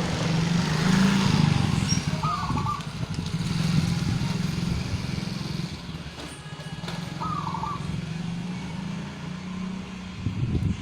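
Zebra dove (perkutut) cooing twice, short trilled phrases about five seconds apart, over the louder steady low hum of a running engine that fades near the end.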